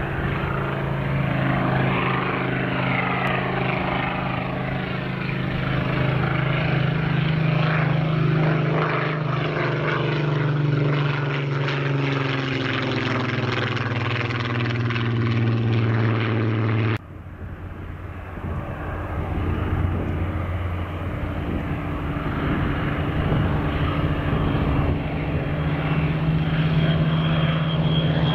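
Supermarine Spitfire's V12 piston engine running as the fighter flies low past, its pitch dropping steadily as it goes by. More than halfway through, the sound cuts off abruptly and another Spitfire's engine follows, growing louder as it approaches.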